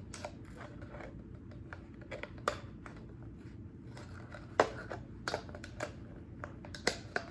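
Thin plastic bottle being handled and pierced with a knife point: irregular sharp clicks and crackles of the plastic, with a few louder pops, the loudest a little past halfway.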